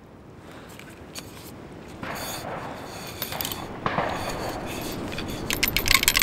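CZ Scorpion .22 rimfire being tilted and shaken in the hands, with scraping and clicking handling noise. A spent case rattles loose inside the action in a quick run of clicks near the end.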